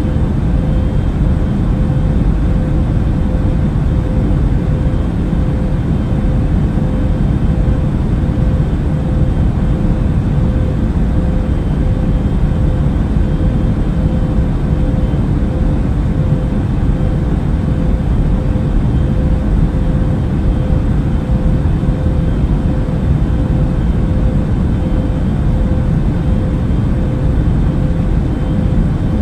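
Airplane cabin noise in flight: a steady, unchanging low rumble with a thin steady tone held above it.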